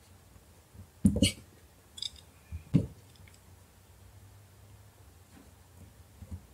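Small phone parts and a screwdriver clicking and knocking against each other and on a tabletop as they are handled: a sharp clack about a second in, a few more around two to three seconds, then only faint ticks.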